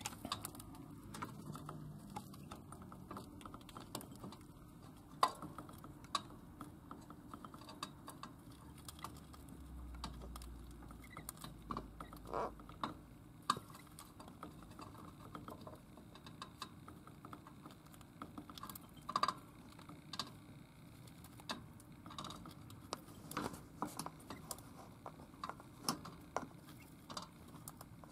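Budgerigar feeding in a ceramic bowl: irregular small clicks and taps of its beak picking at seeds and knocking the bowl, a few louder than the rest.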